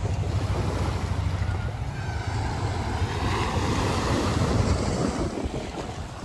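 Small waves breaking and washing up a sandy shore, with a surge of surf about halfway through. Wind buffets the microphone with a low rumble.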